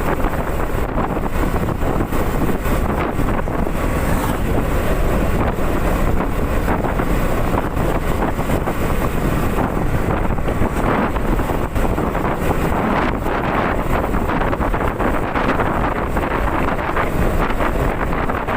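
Steady wind noise rushing over the microphone while riding a Honda CB150R motorcycle, with the bike's engine and road noise running underneath.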